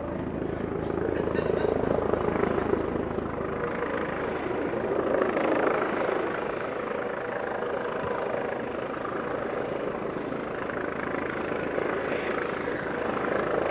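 Police helicopter hovering and circling overhead: a steady rotor and engine drone that swells and eases several times as it turns.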